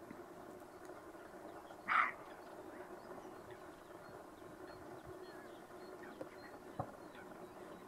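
A roe deer barks once, a single short, harsh bark about two seconds in.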